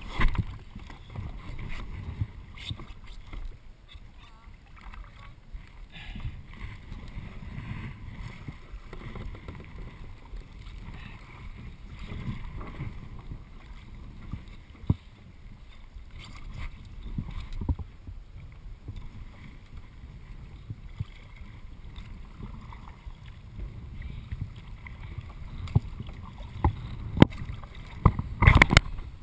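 Kayak being paddled: paddle blades dipping and splashing in the water over a steady low rumble, with scattered light knocks and one louder, sharp noise near the end.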